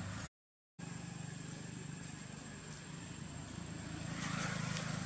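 Steady low engine hum that cuts out for about half a second near the start and swells louder about four seconds in.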